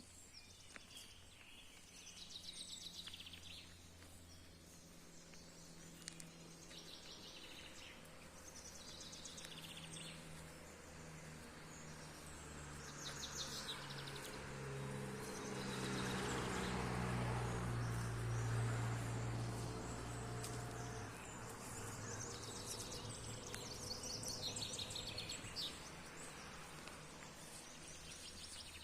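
Outdoor ambience with small birds chirping in short repeated bursts, over a low steady hum that grows louder about halfway through and then fades away.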